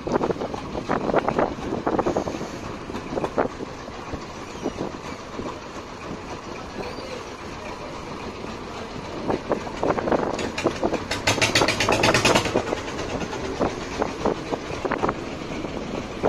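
A wooden river boat's engine running with a rhythmic chugging. It grows louder and clatters rapidly for a couple of seconds about ten seconds in.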